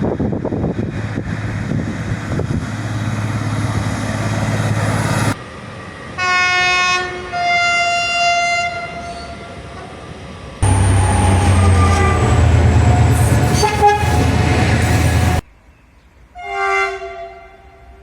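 Train air horns in several short clips. First comes a rumble with wind on the microphone, then a two-note horn blast. A loud passing train follows with horn notes over its running noise, and finally one short horn toot near the end.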